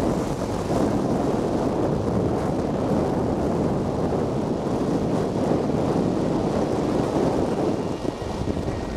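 Steady wind rush on the microphone over the noise of a car driving on an unpaved dirt road.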